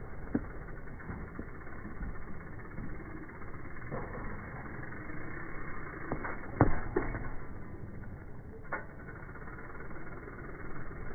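BMX bike tyres rolling on concrete ramps, with a loud thump a little past the middle as a rider lands a jump, and a few lighter knocks around it.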